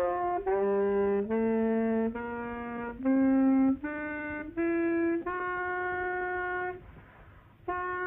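A reedy wind instrument plays a slow melody of separate held notes that climb step by step in pitch. The last note is held longest, then there is a short pause about seven seconds in before a new note starts.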